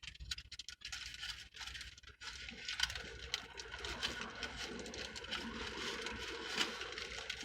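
Close-miked chewing and mouth noises of someone eating fast food, a dense run of small crackling clicks.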